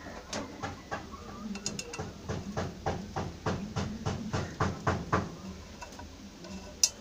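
Small steel nuts and bolts clinking and rattling against each other as they are picked through by hand, in a quick run of about four clicks a second that thins out about five seconds in. One sharp click comes near the end.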